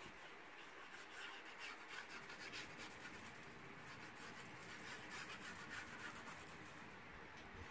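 Faint, irregular crackling and rustling as liquid glue is squeezed from a plastic bottle along the edge of a paper panel, with the paper shifting in the hand.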